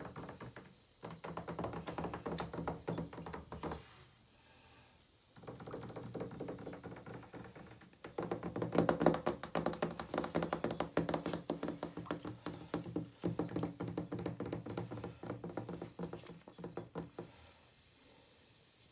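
Fingers tapping and patting in foamy bathwater around a dissolving bath bomb. The quick taps come in bursts of a few seconds, with a short pause about four seconds in, and they stop near the end.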